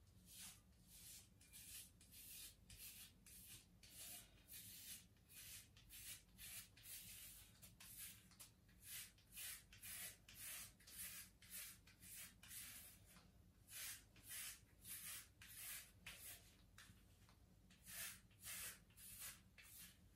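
Multi-blade cartridge razor scraping across a lathered scalp in short, repeated strokes, about two a second. Faint.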